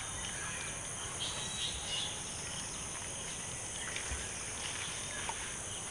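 Steady high-pitched chirring of crickets and other insects, with a few faint small clicks.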